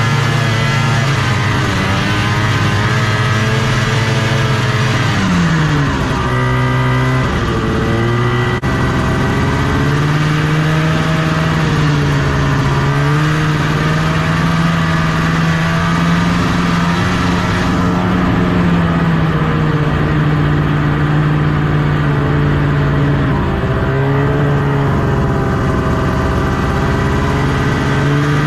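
1974 Arctic Cat Cheetah 340 snowmobile's Kawasaki-built 340 cc two-stroke engine running under way, loud and close. It eases off about five seconds in and revs back up a couple of seconds later, then holds a fairly steady pitch with small rises and dips.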